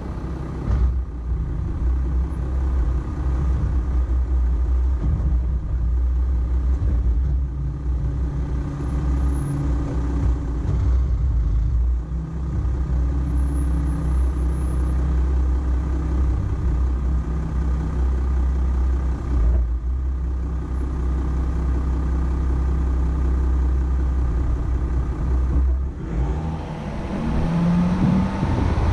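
Volkswagen Amarok pickup driving off-road: a steady low engine and drivetrain rumble, with the engine note rising near the end.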